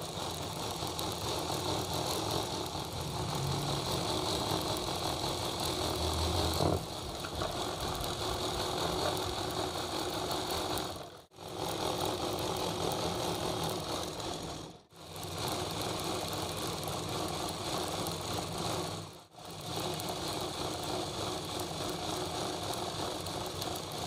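Electric sewing machine running steadily as it stitches straight lines along cloth, with a light rattle. It breaks off briefly three times, about halfway through, around two-thirds of the way and again shortly after.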